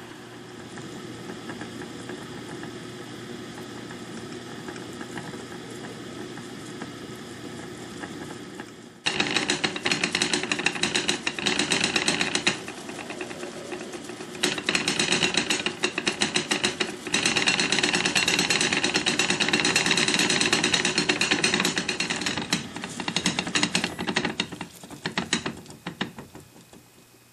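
Clams, fish and shrimp steaming in a covered tajine pot: a steady hiss with a low hum, then about nine seconds in a loud, rapid rattling sputter of the boil. It fades away near the end.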